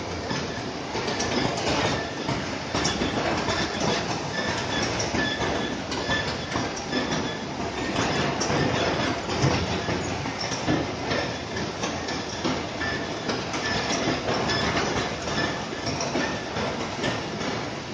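Steel roller conveyors running on a packing line: a steady rattling clatter of rollers and cartons, with many small clicks and knocks over a constant machine din.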